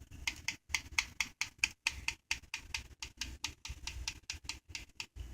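Typing on a computer keyboard: rapid, irregular key clicks, several a second.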